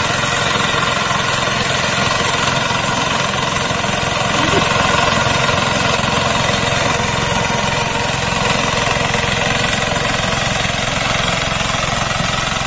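Walk-behind reaper running steadily while cutting standing grain: a small engine with the rapid, continuous clatter of its cutter bar.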